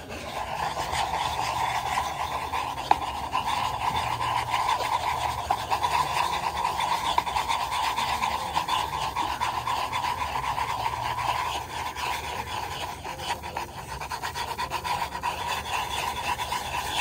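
Plastic cup being spun and slid in circles on a wooden floor to mix its contents, making a steady scraping rasp.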